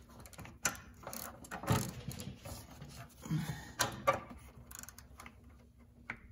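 Ratchet wrench clicking in short bursts as a stubborn exhaust nut is worked back and forth to free it, the nut now turning.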